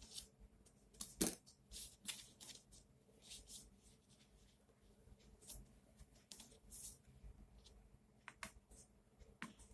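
Faint rustling and scattered small clicks of cotton mask fabric being handled and folded by hand, with one sharper click just over a second in.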